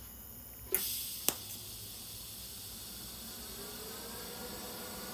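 TIG welding arc struck on thin stainless steel tube: a sudden crackling start about a second in, a sharp click just after, then the arc settles into a steady high hiss. A faint tone rising in pitch joins the hiss near the end.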